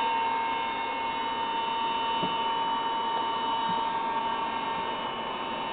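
Cooling blowers of a Collins 618T airborne HF transmitter running: a fairly noisy, steady airy rush with a constant high whine.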